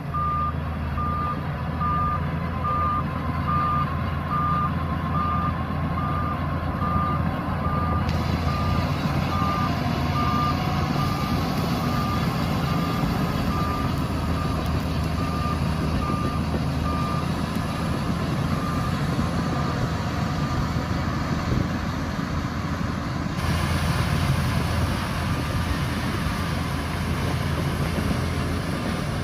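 Heavy diesel engine of a Shantui DH17C2 bulldozer running steadily. Over it a reversing alarm beeps about one and a half times a second, a sign that the machine is backing up. The beeps grow fainter in the second half.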